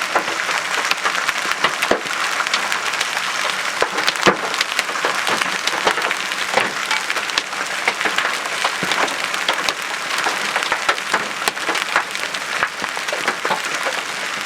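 Giant hailstones, over 5 cm across, pounding the car's body and windscreen, heard from inside the cabin: a dense, continuous clatter with many hard, separate knocks, a few much louder than the rest.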